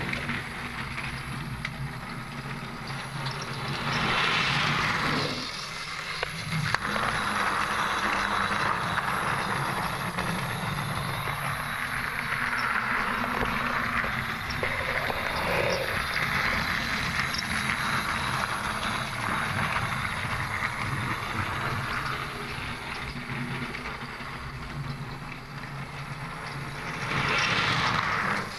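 A Plarail toy Duck engine's small motor whirring as it pushes a string of wooden Thomas & Friends engines, their wheels rattling along blue plastic Plarail track. It gets louder twice, about four seconds in and again near the end, as the train passes close by.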